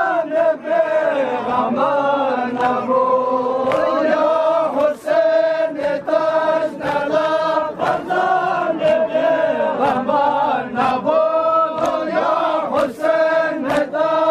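Men's voices chanting a Farsi noha, a Shia mourning lament, together, over a steady beat of hand slaps on the chest (matam) about one and a half a second.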